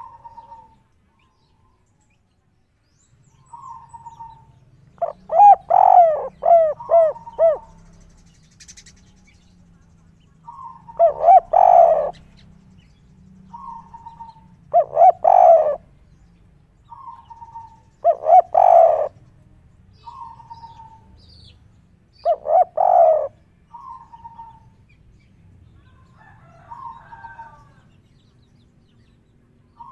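Spotted dove cooing, the song that Indonesian keepers call 'kuk 3'. Each phrase is a short soft note followed by a loud run of coos, and the phrase repeats about seven times, every three to four seconds.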